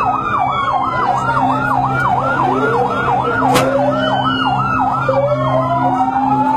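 Emergency vehicle sirens: one yelping rapidly up and down, about three to four sweeps a second, with other sirens wailing in slow rising and falling glides over it and a steady low engine hum beneath. A sharp click sounds about three and a half seconds in.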